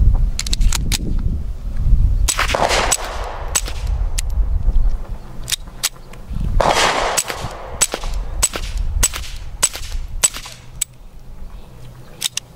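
Smith & Wesson Model 2206 .22 LR pistol firing through a suppressor: a string of more than a dozen sharp, muffled cracks at an uneven pace of about one to two a second. The shots stop shortly before the end.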